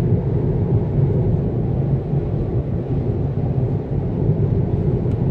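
Steady, low road and tyre noise inside the cabin of a Tesla Model 3 cruising at highway speed, about 66 mph.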